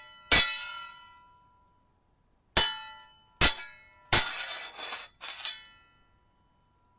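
Metal sword blades clashing: five sharp, ringing strikes, the last two close together and the fourth drawn out longer and noisier, like blade grinding on blade.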